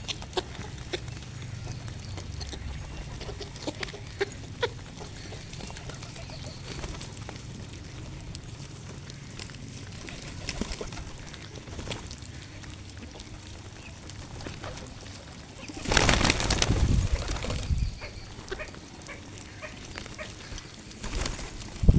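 Birds feeding, with scattered sharp pecking taps over a low background hum, and a louder burst of rustling noise about sixteen seconds in that lasts about two seconds.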